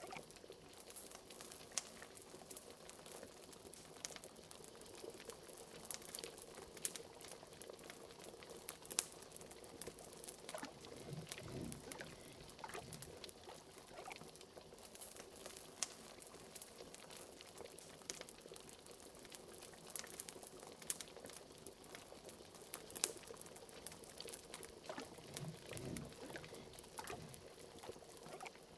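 Liquid bubbling softly and steadily in a pot, with bigger gurgling bubbles about eleven seconds in and again near the end. Frequent sharp crackles of a wood fire run over it.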